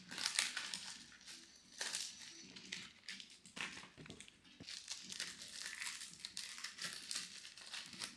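Clear plastic packing bags crinkling and rustling in irregular bursts as small items are slid into them and handled by hand; the loudest rustle comes about half a second in.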